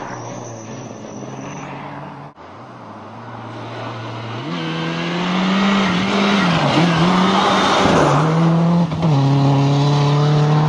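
Rally car engine running hard, growing louder about four seconds in, its note dipping briefly twice and then holding high, with a rush of tyre noise in the middle.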